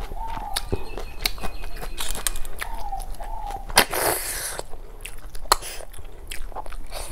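Close-miked eating of snail curry and rice: wet chewing with lip smacks and mouth clicks, and one loud slurp about four seconds in.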